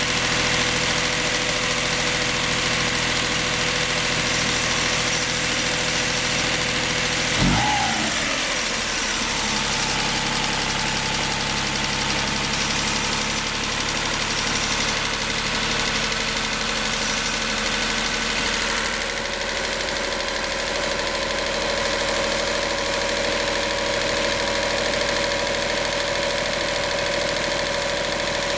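Honda Beat engine running steadily with an abnormal noise of unknown cause, heard as a steady whine over the engine sound. About seven and a half seconds in a brief louder sound falls sharply in pitch, and the whine then settles at a different pitch.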